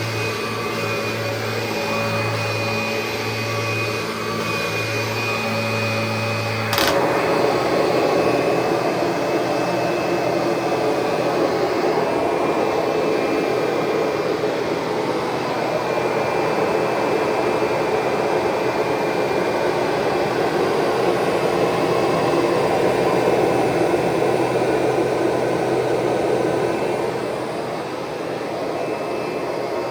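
1990 Kirby Generation 3 upright vacuum running on carpet, a steady motor whine and rush of air. About seven seconds in there is a click, and the sound turns louder and rougher for the rest of the stretch.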